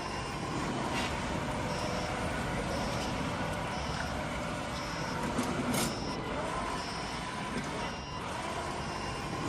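Small gasoline engine of a remote-control lawn mower running steadily, with faint high beeps repeating about every half second through the middle of the stretch.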